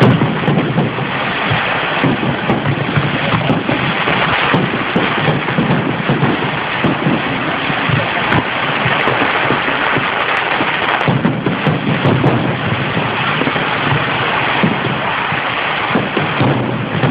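Fireworks going off in a dense, continuous barrage: rapid crackling with low booms mixed in, loud throughout.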